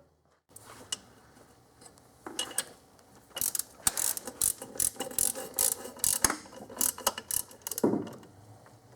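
Hand ratchet with a deep socket clicking in a run of quick back-and-forth strokes, running down a nut on an intake manifold stud.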